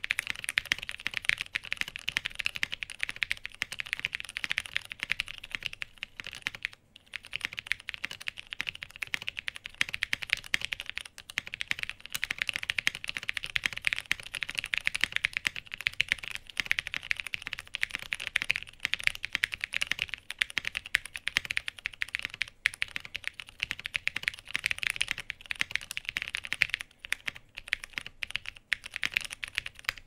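Fast, steady typing on a mechanical keyboard fitted with lubed Cherry MX Brown switches on an aluminium plate, lubed Staebies stabilizers and Monokei Series 1 keycaps: a dense run of key clacks with a few brief pauses.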